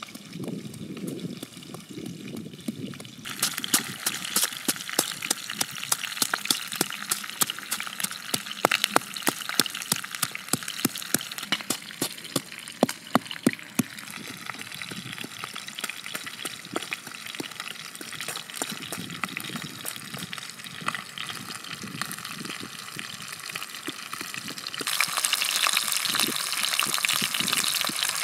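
Dull thuds of a pestle pounding in a wooden mortar for the first few seconds. Then a sudden change to a steady hiss dotted with many sharp crackles and pops. About three seconds before the end a louder, brighter sizzle of fish pieces frying in oil in a pan takes over.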